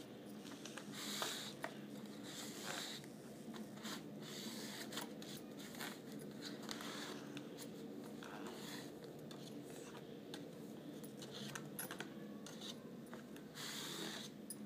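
Sheets of trap material being handled in a workshop: bursts of rustling and tearing with light clicks, over a steady machine hum.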